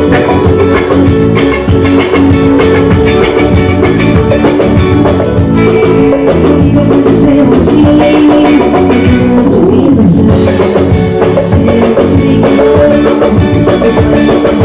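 Live band playing loudly: electric guitar and drum kit over a steady beat, with held notes from guitar or keyboard.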